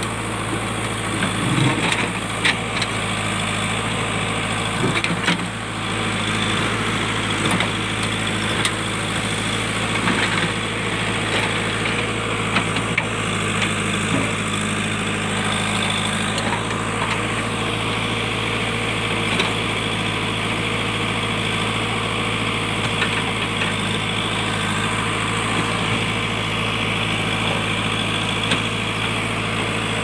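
JCB backhoe loader's diesel engine running steadily as the backhoe digs rock, with a few sharp knocks of bucket and rock in the first six seconds.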